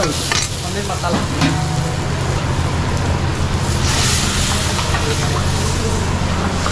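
Food sizzling and frying in a large wok over a high gas flame, with the metal ladle scraping and knocking on the wok a few times near the start. A steady low hum runs underneath, and the sizzle swells about four seconds in as a ladle of gravy goes into the hot wok.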